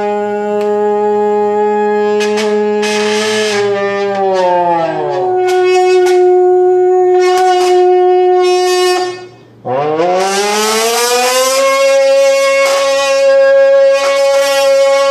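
Voice buzzed into a pressed beer can to imitate a V10 engine: a sustained buzzy, horn-like tone. Its pitch drops about a third of the way in, holds, cuts out briefly past the middle, then sweeps up and holds again.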